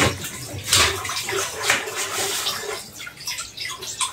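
Kitchen tap water running and splashing into a stainless steel pot as duck eggs are washed by hand, with irregular sloshing.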